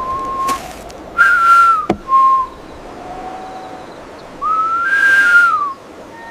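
Whistling: a run of five separate whistled notes, each under about a second and a half, held fairly steady and some bending up at the start and down at the end, with a sharp click just before the middle.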